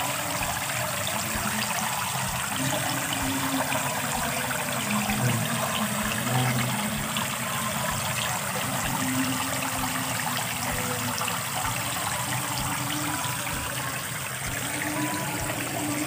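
Water sprayed from a garden hose nozzle splashing steadily onto the surface of a fish tank.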